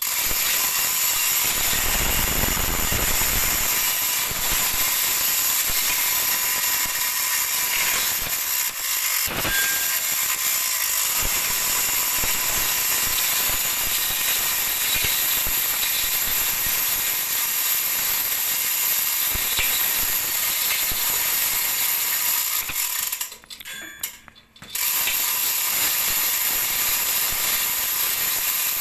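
Chain block's ratchet and pawl clicking rapidly and continuously as its chain is worked. It stops briefly about 23 seconds in, then starts again.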